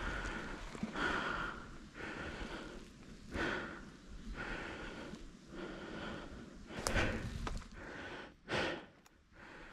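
A person breathing hard close to the microphone, about one breath a second, with some rustling of movement.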